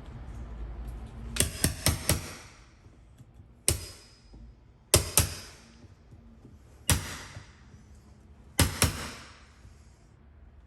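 Hammer striking a 3/4-inch wood chisel, about ten sharp blows in groups: a quick run of four, then single and paired strikes a second or two apart. The chisel is cutting a mortise deeper in the wood after a fit check showed it too shallow.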